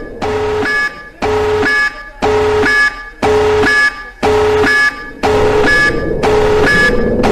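Synthesized emergency-alert alarm repeating about once a second, each burst a steady lower tone followed by a short higher tone, with short gaps between bursts.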